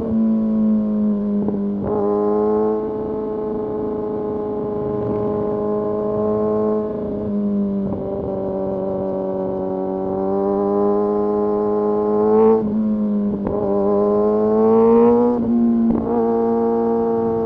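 Kawasaki Ninja ZX-6R's inline-four engine under way, running at fairly steady high revs, broken several times by quick drops and jumps in pitch as it changes gear. Near the end the revs climb before another sudden change.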